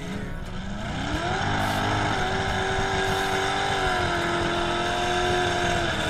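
Mud truck engine revving up hard within about a second and holding at high revs, easing off slightly twice, over a steady low rumble.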